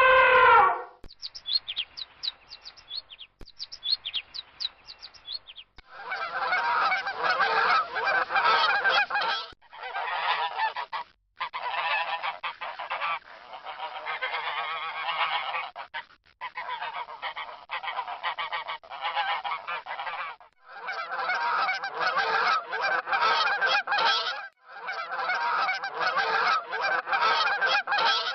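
A flock of geese honking and calling together, in several back-to-back recordings that each stop briefly before the next begins, starting about six seconds in. Before that, two short runs of quick high finch chirps, opened by the tail of a falling call.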